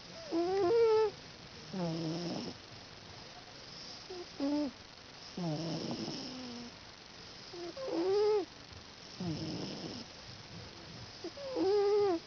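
House cat snoring loudly in its sleep. Each breath makes a high, wavering pitched note followed about a second later by a lower, rougher one, and the pair repeats about every three and a half seconds.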